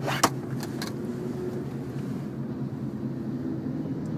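Steady road and engine noise of a moving car, heard from inside the cabin, with a few sharp clicks in the first second.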